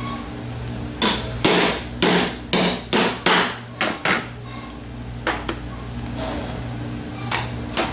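Hammer blows on the drive end of a socket, knocking the needle bearing out of a Ford 1G alternator's slip-ring end housing: about eight sharp metal strikes, roughly two a second, then a few lighter knocks near the end.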